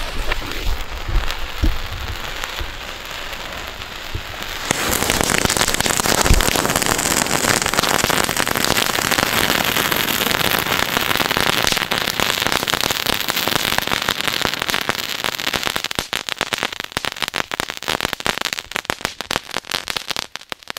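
A heap of small youth-class ground fountains burning together. A thin sparking sizzle from the lighting stick, then about five seconds in a loud, dense hiss of spraying sparks as the fountains take, turning into rapid crackling over the last few seconds before it dies away.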